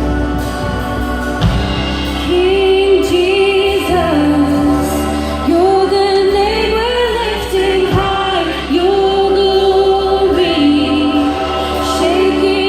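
A live worship band plays a slow worship song: sustained chords with a singer holding long melody notes with vibrato, the voice entering about two seconds in.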